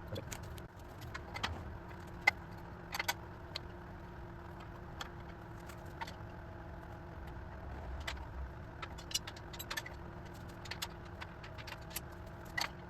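Scattered light metallic clicks and clinks of roof-rack parts and hardware being handled and fitted, over a steady low hum.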